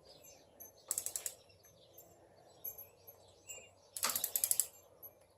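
Ratchet torque wrench cranked in two short runs of rapid clicks, about a second in and again near four seconds, tightening engine bolts down to 25.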